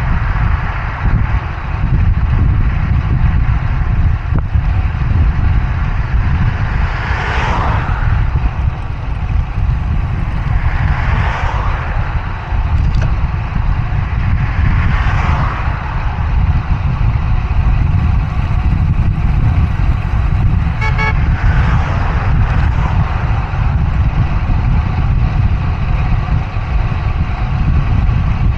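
Wind rushing over an action camera's microphone on a moving bicycle, as motor vehicles pass one after another, each swelling and fading, about four in all. A short toot sounds about two-thirds of the way through.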